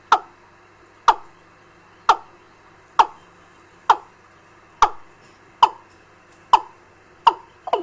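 Recorded fowl ('gà') call played as a bird-trapping lure: short notes, each sliding quickly down in pitch, repeated about once a second and coming faster near the end.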